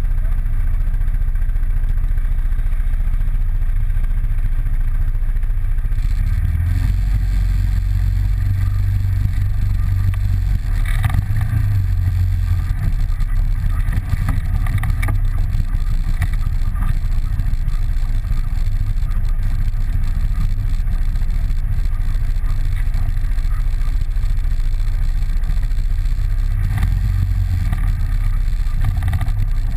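ATV engine running, picking up revs about six seconds in as the quad moves off, then running steadily under way over rough dirt.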